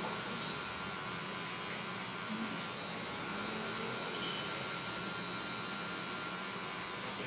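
Electric hair clipper running with a steady buzz while trimming short hair close to the skin behind the ear.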